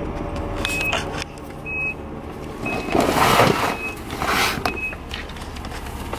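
A car's warning chime beeping about once a second while the vehicle sits with the engine running. A loud rustle of plastic about three seconds in, and again a second later, as a deflated vinyl air mattress is dragged out of the open cargo area.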